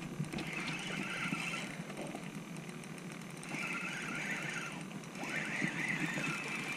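Spinning reel being cranked in three spells of a second or so, with faint ticking of the mechanism, as a small hooked fish is reeled in.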